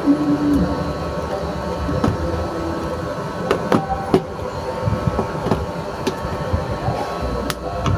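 Scattered sharp clicks and taps of wires and connectors being handled while a solar panel's wire is hooked up, over a steady low rumble.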